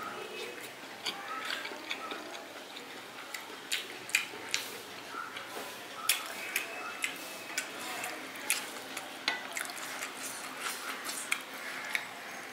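Close-miked eating sounds: a person chewing fried eggplant with rice, with irregular wet clicks and smacks a few times a second.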